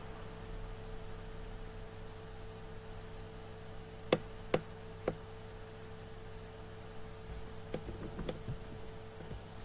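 Steady electrical hum with a constant high tone, broken by three sharp clicks a little after four seconds in and a cluster of fainter clicks and knocks near the eight-second mark.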